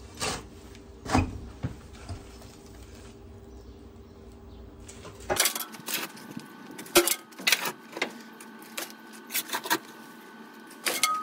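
Metal tools scraping and clanking against the steel of a wood-fired boiler as its ash is raked and shovelled out. The knocks are sharper and come thicker in the second half.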